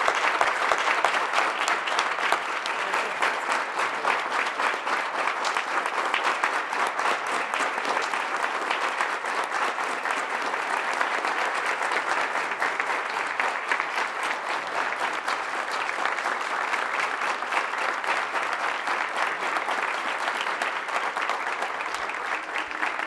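A crowd of people clapping in sustained applause, a dense, even patter of many hands that keeps going without a break.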